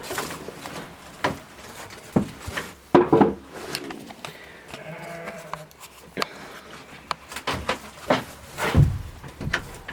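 A farm animal bleating once, a call of about a second near the middle, among scattered knocks and clicks of movement.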